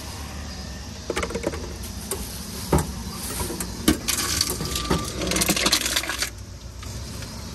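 Empty plastic bottle knocking into a Teraoka plastic-bottle recycling machine, then the machine whirring in short runs as its motorised drum door rotates shut to take the bottle in and opens again. There are a few sharp clicks and knocks, and a brief beep-like tone partway through.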